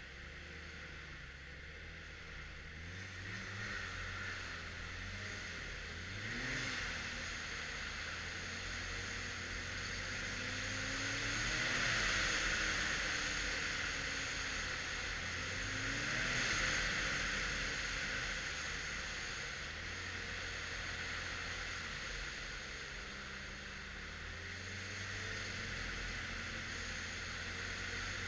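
Stock Arctic Cat XF 1100 Turbo snowmobile's turbocharged three-cylinder four-stroke engine running at trail speed, its pitch rising and falling with the throttle, loudest about twelve and sixteen seconds in. A steady hiss of wind and track noise runs underneath.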